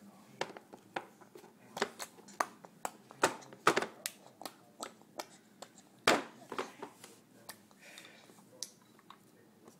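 A baby in a high chair making a run of irregular sharp smacks, about twenty in all, a few much louder than the rest, stopping shortly before the end.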